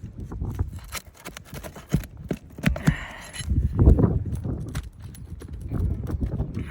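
Hand tool scraping and knocking against stiff, brittle asphalt roof shingles as one is pried up over its nails, with gritty crunching and a run of sharp clicks, heavier thumps in the middle.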